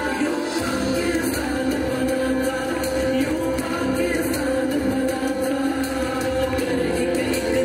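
A song playing, with singing over held instrumental notes, at a steady level.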